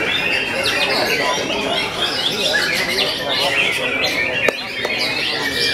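Many caged white-rumped shamas (murai batu) singing at once: a dense, overlapping mix of whistles, chirps and quick trills. There is one sharp click about four and a half seconds in.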